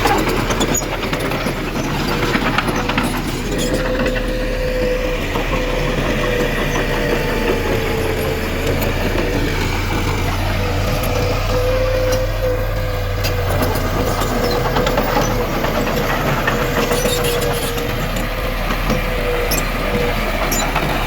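Diesel engine of heavy earthmoving machinery running steadily, with a wavering whine and scattered clanks.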